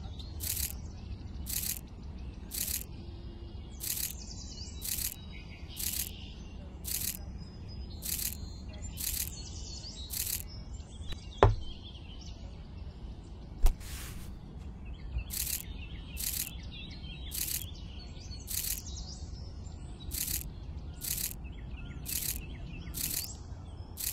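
Birds chirping over a low rumble, with a short high chirp repeating about once a second. Two sharp clicks come about two seconds apart near the middle.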